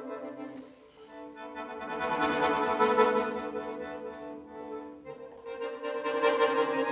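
Two instruments playing contemporary chamber music in sustained, held chords. The sound thins almost to nothing about a second in, swells up again, eases off around five seconds, and builds once more near the end. The recording is somewhat distorted.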